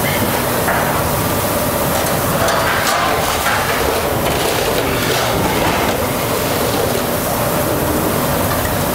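Steady background noise of a working restaurant kitchen, a constant rushing hum, with a few faint clinks scattered through it.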